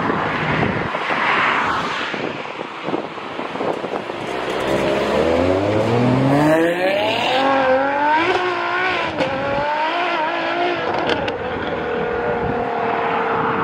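Ferrari 599 GTO's V12 accelerating hard, its note climbing steeply through the revs about five seconds in. It then stays high, dipping and rising again as the revs change.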